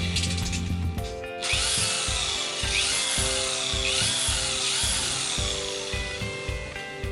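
Electric drill driving a drill-bit sharpener, running steadily and cutting off about a second in, over background music.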